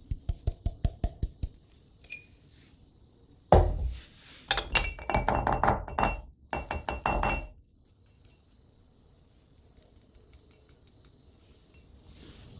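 Stainless steel funnel tapping and rattling against the mouth of a small glass jar as powder is shaken through, clinking: a quick run of about eight light taps, then a few seconds later a louder stretch of rapid clinking and rattling.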